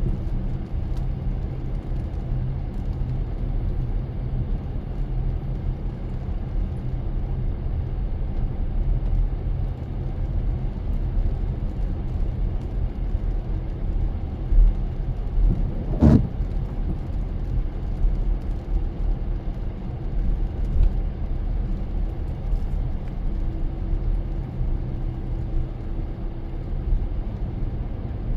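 Car driving, with a steady low rumble of engine and road noise. A single sharp thump sounds a little past halfway.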